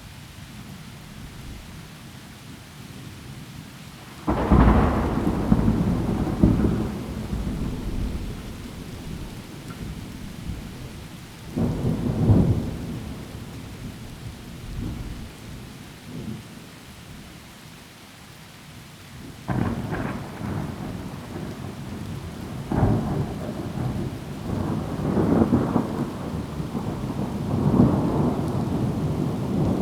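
Steady heavy rain under thunder: a sudden loud clap about four seconds in that rumbles on for a few seconds, another clap around twelve seconds, then long rolling thunder with several peaks from about twenty seconds on.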